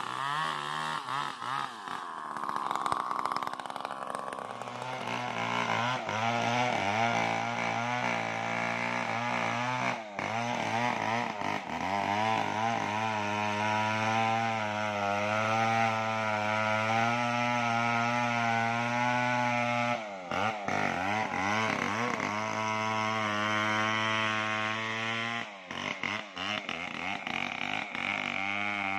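Large assembled Stihl 070-type two-stroke chainsaw running hard as it cuts into the base of a tree trunk. Its pitch wavers as it bogs and frees in the cut, and it drops briefly about twenty seconds in and again a few seconds before the end.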